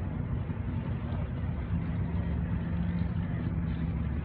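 Steady low rumble of engines from a racing and drag track, with one steady engine note holding for about two seconds in the second half.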